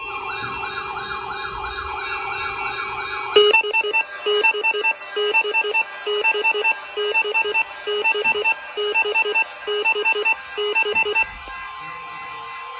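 Weather radio receiver's alert alarm going off for an EAS severe thunderstorm watch. A warbling siren tone lasts about three seconds, then switches to pulsing beeps about twice a second over a steady tone. The beeps stop shortly before the end, leaving the steady tone.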